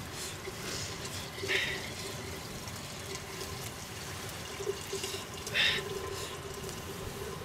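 Liquid poured from a vessel through a metal strainer into a pot, trickling and splashing, with two brief louder splashes, about a second and a half in and again after about five seconds.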